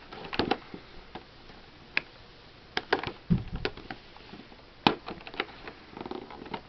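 A trimmer's cardboard retail box being handled and worked at by hand to open it: scattered clicks, taps and scrapes, with one dull thump about halfway through.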